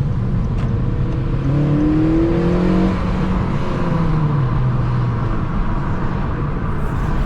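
Car engine accelerating, its pitch rising for a second or two and then falling away, over a steady rumble of road and driving noise.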